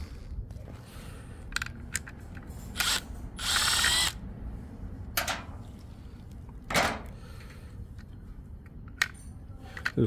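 A cordless drill-driver whirring in a few short bursts, the longest lasting just under a second midway, with its pitch rising as it spins. Small clicks and knocks come from handling the plastic board housing in between.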